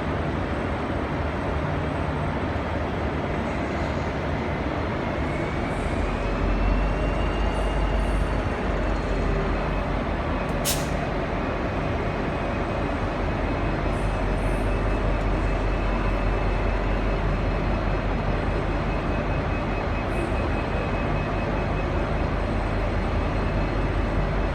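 V/Line N class locomotive's EMD 12-645 two-stroke diesel engine running with a steady deep rumble, building up about six seconds in with a whine that rises and then holds as the train departs. A single sharp click about ten seconds in.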